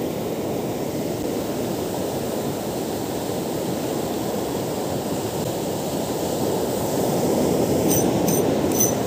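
Ocean surf breaking on a sandy beach, a steady low rushing rumble that swells a little near the end, with a few faint ticks near the end.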